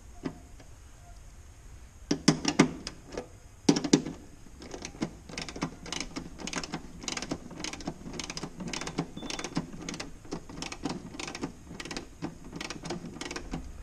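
Metal hand tool clicking on the axle hardware of a light aircraft's main-gear wheel: a few louder knocks about two seconds in, then fast, fairly regular clicking, about three a second.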